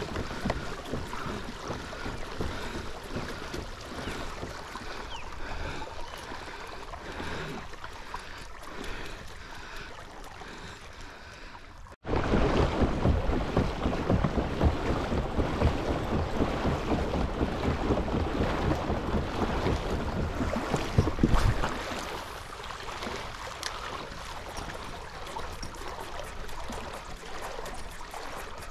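Water washing along a moving fishing kayak's hull, with wind buffeting the microphone. About halfway through, the sound cuts abruptly to a louder stretch of rushing water and wind for about ten seconds, then settles back to a quieter wash.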